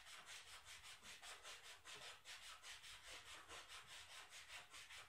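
Faint hand sanding: sandpaper rubbed back and forth in quick, even strokes, about four a second.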